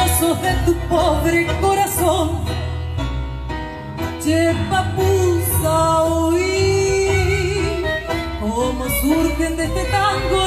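Tango sextet playing live: a woman sings into a microphone over violin, keyboard and a low bass line.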